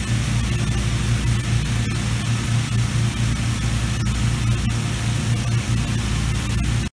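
Engine-driven inflator fan running steadily, blowing cold air into a hot-air balloon envelope: a loud rush of air over a low, even engine hum. It cuts off abruptly near the end.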